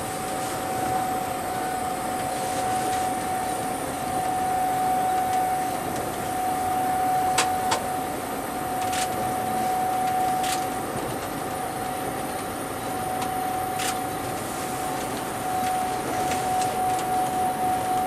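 Cab noise of an Alstom Coradia Meridian ETR425 electric multiple unit running along the track: a steady rolling noise with one constant whine. A few sharp clicks come about halfway through, and a quick rhythmic pulsing starts near the end.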